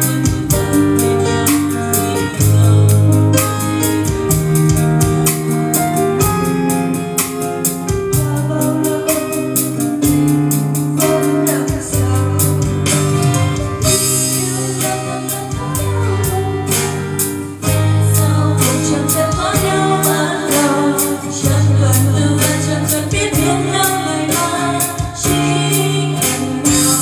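Female karaoke singing into handheld microphones over a backing track with a steady beat, played through a Nanomax SK-12F3 portable karaoke speaker with a 30 cm bass driver.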